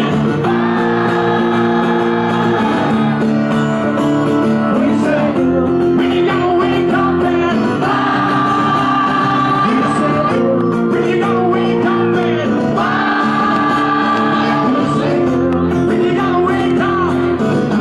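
Live acoustic rock performance: acoustic guitar chords with a singer holding long notes over them.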